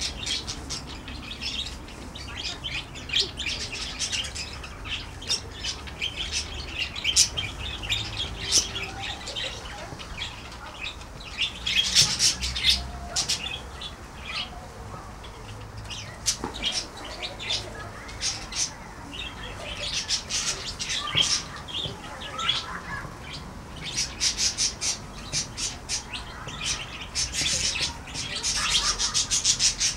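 A flock of budgerigars chattering: many short, high chirps and squawks overlapping, coming in bursts that are loudest about twelve seconds in and again near the end.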